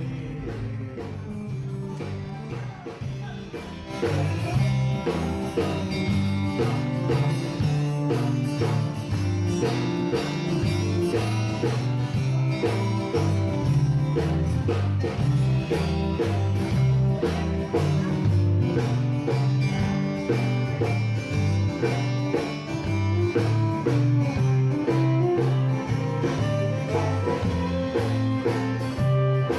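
Background music led by a plucked guitar with a steady beat, getting louder and fuller about four seconds in.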